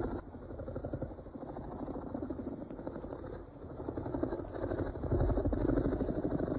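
Deep, rough, rumbling growl of a creature sound effect, pulsing rapidly and swelling louder again toward the end.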